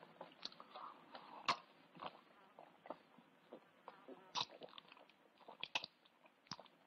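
A man eating and drinking: chewing and gulping, with scattered sharp clicks and knocks of a cup and tableware.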